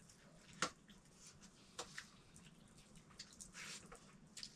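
Faint eating sounds: a few light clicks and soft wet squishes as dal and rice are mixed and eaten by hand from a plate.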